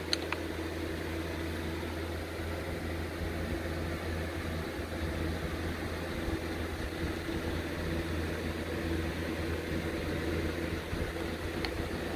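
Steady low mechanical hum with an even noise over it, and a faint click just after the start and another near the end.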